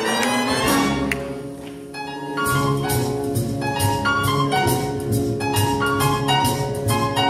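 Live big band with a string section playing a swing-era arrangement, heard from the audience. The music eases to a softer passage about two seconds in, then the full band comes back in with held chords.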